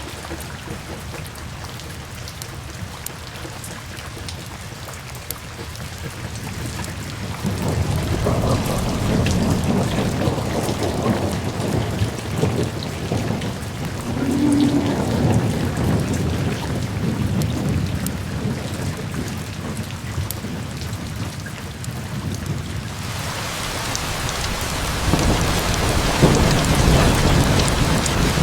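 Steady rain falling, with long, low rolls of thunder rumbling through the middle and again near the end. The rain grows heavier in the last few seconds.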